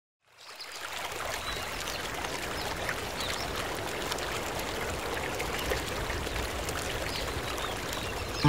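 Steady flowing water, fading in over the first second.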